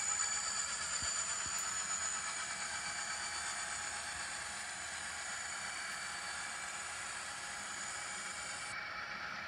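Pair of ScaleTrains Rio Grande SD40T-2 model diesel locomotives running with a freight train: a steady running sound with a faint high whine that fades over the first few seconds.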